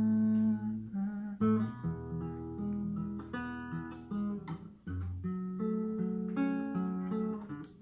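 Acoustic guitar playing without singing. A chord rings for about the first second, then a run of strummed and picked chords changes roughly every half second.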